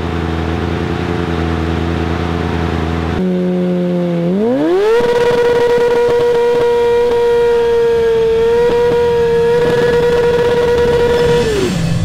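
Kawasaki ZX-6R 636 sport bike's inline-four engine revving through a burnout. It runs steadily at first, climbs to a high held pitch about four seconds in while the rear tyre spins on the spot, and drops back near the end.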